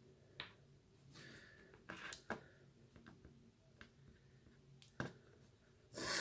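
Faint clicks and taps of a plastic dropper bottle of paint being handled and paint dispensed onto a palette, with a short rush of noise near the end.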